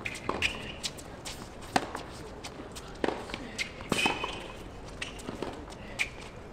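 Tennis rally on a hard court: the sharp pops of racket strings striking the ball and the ball bouncing, every second or so, with brief squeaks of tennis shoes on the court surface near the start and about four seconds in.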